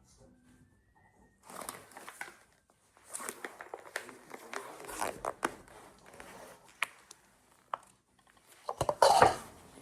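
Irregular crinkling and rustling handling noises, like things being unwrapped or moved about, with a few sharp clicks and a louder clatter near the end.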